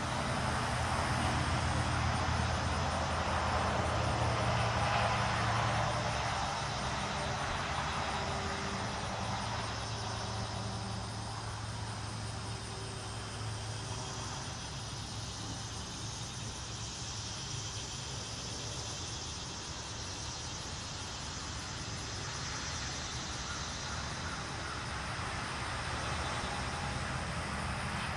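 Distant motor vehicle noise, loudest in the first six seconds, then easing to a quieter steady background. A high, rapidly pulsing insect chorus runs underneath.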